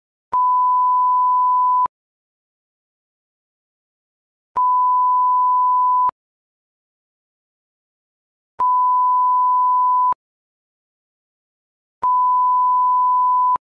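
Electronic alert tone in a mock emergency broadcast: four long beeps of a single pure, steady pitch, each about a second and a half, separated by two to three seconds of dead silence. Each beep starts and stops with a faint click.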